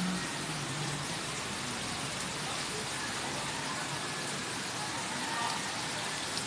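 Steady hiss of rain falling on standing floodwater and wet ground.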